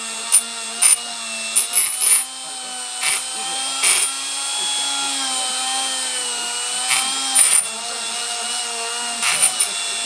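Dremel rotary tool running at a steady high whine while its polishing bit buffs a brass capsule. The pitch wavers slightly as the bit is pressed against the metal, and brief sharp bursts come several times.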